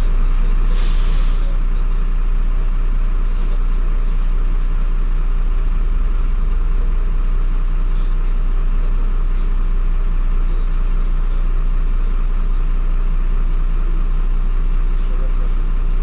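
Jelcz M121M city bus heard from inside the passenger cabin: its engine and running gear keep up a steady low drone. About a second in comes a short hiss of released compressed air from the bus's pneumatic system.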